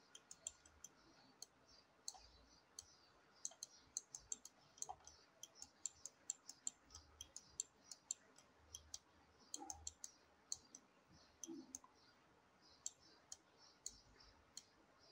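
Faint, irregular clicks from a computer mouse and keyboard, many short taps scattered throughout, some in quick clusters.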